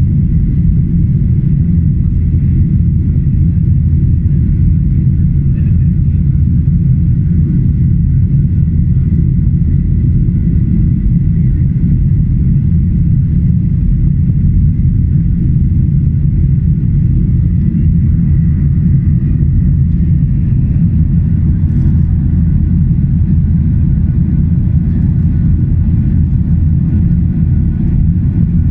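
Cabin noise of a Boeing 737-800 in the climb after takeoff: the steady low rumble of its CFM56-7B turbofan engines and rushing airflow, heard from a window seat over the wing, with a faint steady high whine.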